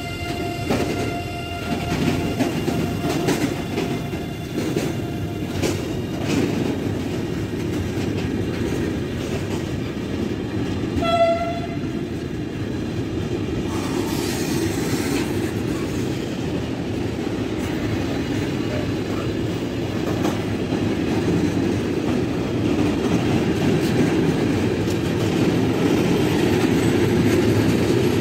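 A train running past on the rails, with a steady rumble of wheels that grows louder toward the end. A steady high tone sounds for the first five seconds or so, and a short train horn blast comes about eleven seconds in.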